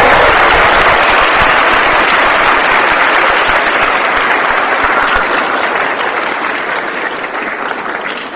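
Audience applauding, the applause slowly dying down.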